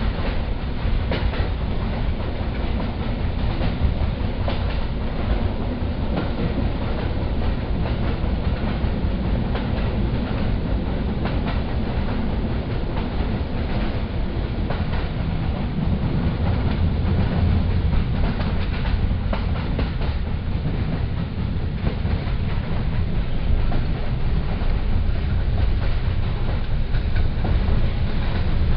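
Polish State Railways (PKP) double-deck passenger coach running along the line, heard from inside. A steady rumble of wheels on rails, with the clickety-clack of the wheels passing over rail joints.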